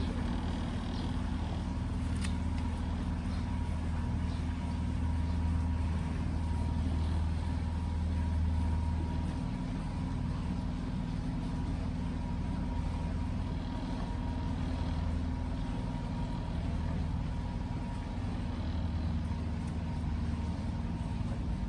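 Small outboard motor of a canal tour boat running steadily at low cruising speed: a low, even hum with a faint steady whine above it.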